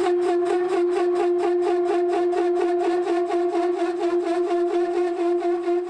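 Parting tool chattering as it cuts a fin groove in a turning cast-iron cylinder, a loud steady squeal with a rapid even pulse. The squeal is the tool vibrating in the groove, the trouble the machinist has cutting these grooves.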